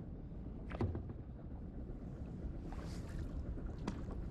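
Water lapping against a kayak hull, with a low wind rumble on the microphone. Two light knocks, about a second in and near the end.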